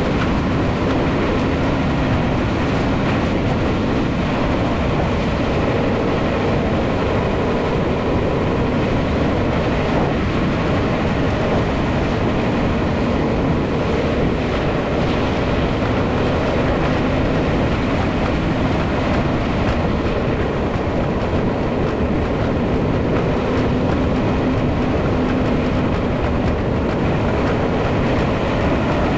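Steady road noise of a vehicle driving at an even speed: a continuous rumble of tyres and engine with a faint low hum, unchanging throughout.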